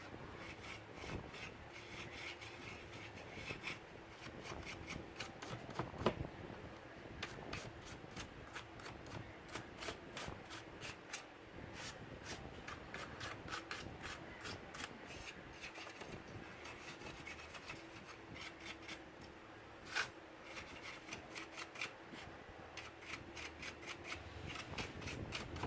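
Dust being rubbed off the inside of an opened laptop: a long run of short scratchy rubbing strokes and small ticks, with two louder clicks, about six seconds in and near the end.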